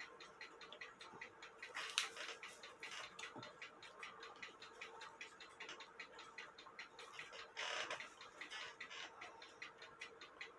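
Antique cuckoo clock movement running on a test stand, ticking evenly at about four ticks a second, with brief handling noises about two seconds in and a louder one near eight seconds.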